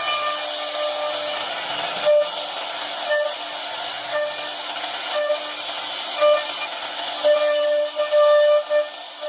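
CNC router spindle running with a steady whine over the hiss of the bit cutting. The whine swells louder in short stretches several times.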